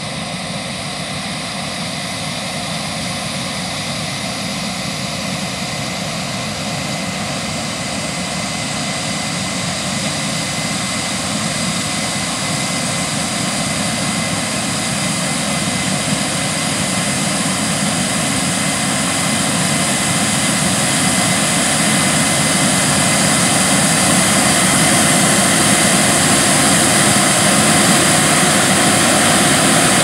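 A Case IH 9230 Axial-Flow combine running under load while cutting wheat: a steady, dense mechanical roar from its engine, threshing rotor and header, with a few constant tones in it. It grows steadily louder as the combine approaches.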